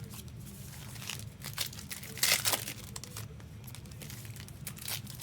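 Foil trading-card pack wrappers crinkling and tearing as packs are opened by hand, in a run of sharp crinkles, loudest a little over two seconds in.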